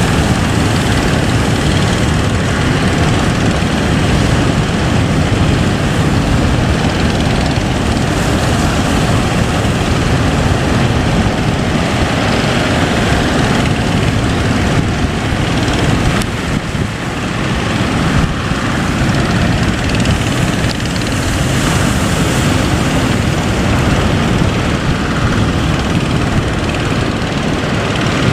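A boat's engine running steadily under a dense rush of wind and wave noise, with a brief dip in loudness about two-thirds of the way through.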